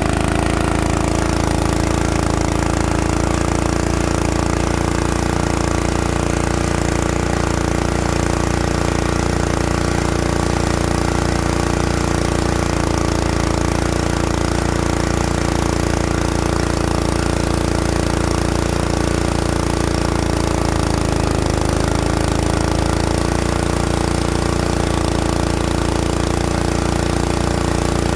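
Engine of a coring drill machine running steadily; its pitch dips briefly and recovers about two-thirds of the way in.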